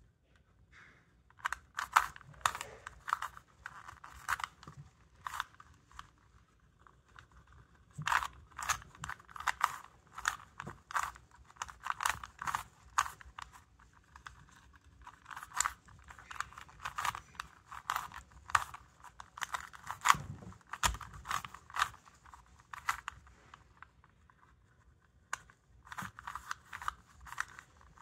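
Rubik's brand 3x3 cube being turned by hand: runs of quick plastic clicks as the layers snap round, about three turns a second, broken by short pauses.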